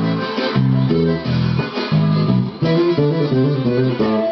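Electric bass played through a bass amp, plucking a syncopated forró groove: short, repeated low notes in a bouncing rhythm that shifts pitch every second or so.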